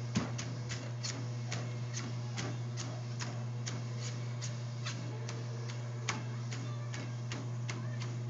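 A child's feet running on a treadmill belt, a steady beat of about three footfalls a second, over the constant hum of the treadmill motor.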